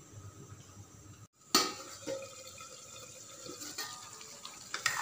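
Wooden spatula stirring thick, bubbling mutton curry gravy in an aluminium kadai: a sharp knock of the spatula against the pan about one and a half seconds in, then wet sloshing and scraping with a few lighter knocks. The gravy has boiled down and thickened.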